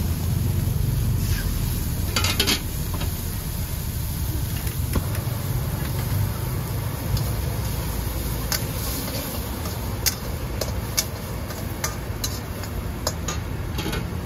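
Metal spatula scraping and clinking against a wok as pad thai rice noodles are stir-fried, with scattered sharp clinks, over the steady low rumble of a gas wok burner.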